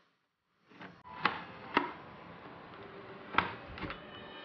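Sharp clicks and knocks of a cordless circular saw being handled and set on a homemade sliding jig, four distinct knocks over a steady hiss, with a brief steady hum coming in near the end.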